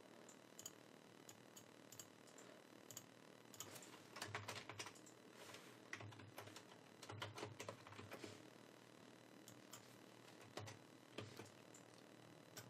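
Faint computer keyboard typing: scattered keystrokes in short clusters, busiest about four seconds in and again around seven to eight seconds.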